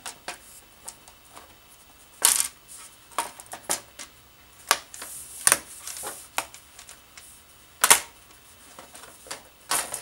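A laptop's bottom cover being pressed onto its chassis: a scattering of sharp clicks and taps as the cover's clips snap in and the panel knocks against the frame. The loudest clicks come about two seconds in and near eight seconds.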